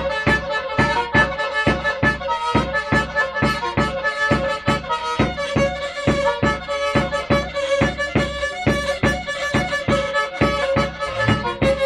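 Black Sea kemençe bowed in a fast dance tune, with one note held steady beneath the melody. A regular beat of low thumps runs along with it, about three a second.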